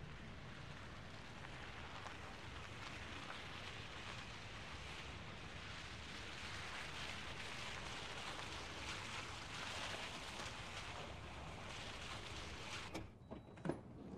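A van driving over a wet, slushy street: steady tyre hiss through the slush that dies away as it stops, followed by a sharp knock near the end.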